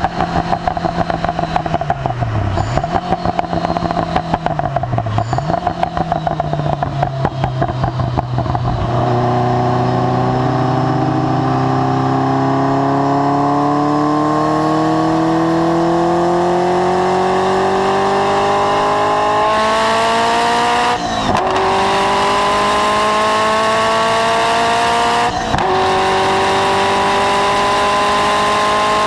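Ferrari F40's twin-turbo V8 through a Tubi Style exhaust. For roughly the first nine seconds it runs unevenly, its pitch dipping and recovering twice. It then pulls under steady acceleration with the pitch climbing slowly, broken by two quick upshifts about 21 and 25 seconds in.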